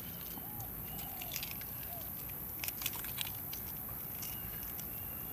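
Small scattered clicks and scrapes of AA batteries and the plastic battery compartment of an RC car's pistol-grip transmitter being handled during a battery change, over a steady background hiss.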